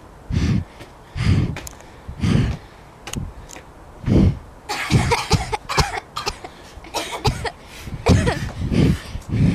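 A person's coughs or hard puffs of breath in short bursts, about one a second at first, coming closer together in the second half.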